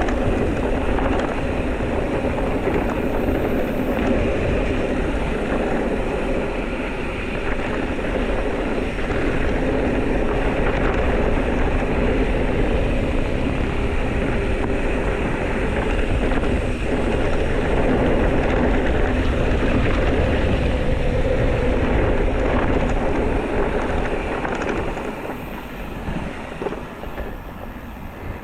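Steady wind buffeting and tyre rumble from an electric mountain bike being ridden along a trail, easing off in the last few seconds as the bike slows.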